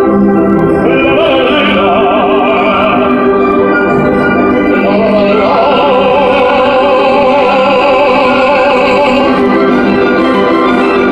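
A man singing opera in full voice with a wide vibrato, over the steady held notes of an instrumental accompaniment.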